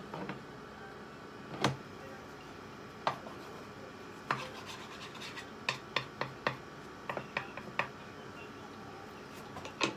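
Wooden spatula scraping and knocking against a frying pan: about a dozen short, irregular strokes, bunched closer together in the middle.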